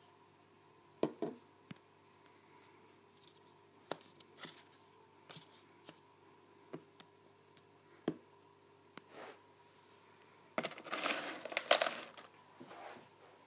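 Scattered light clicks and knocks of objects being handled on a table, then, near the end, a louder stretch of rustling and rattling of about two seconds as a container of white aquarium gravel is handled.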